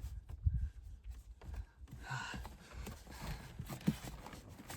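Scattered light knocks and clicks of hands working plastic trim off a car seat back, with a brief rustle about two seconds in.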